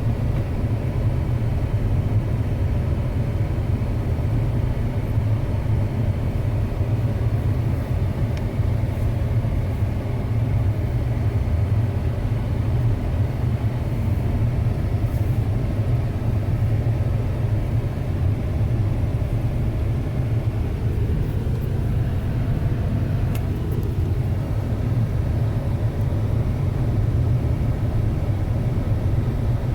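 2006 Ford Expedition driving, a steady low rumble of engine and road noise that does not change much.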